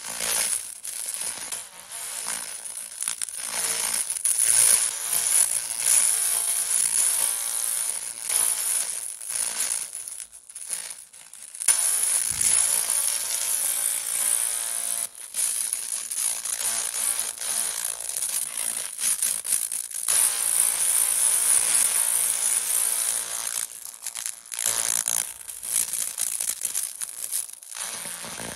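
100 W pulsed laser cleaner ablating carbon deposits off a cylinder head's valves and combustion chamber: a steady high-pitched whine over a hiss, cutting out briefly a few times, most clearly about a third of the way in.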